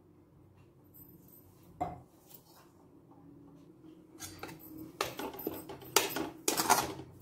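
Steel spatula scraping and knocking against a hammered stainless-steel kadai as coarse gram flour and ghee are stirred. The strokes come in uneven bursts starting about four seconds in, after a single light click about two seconds in.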